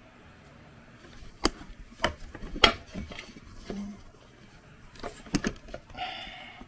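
A camera on its small tripod being picked up and handled against a laser engraver's metal frame and honeycomb bed: a scattering of sharp knocks and clatters, starting about a second and a half in.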